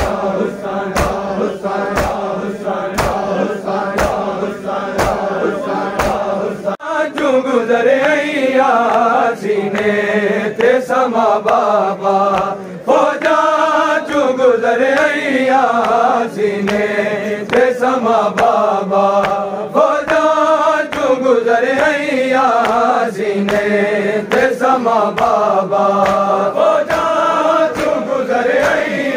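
Men chanting a noha (Shia lament) in unison, with regular open-handed chest slaps of matam keeping the beat. For the first few seconds there is a steady held note with about one slap a second, then the chanting lines begin about seven seconds in.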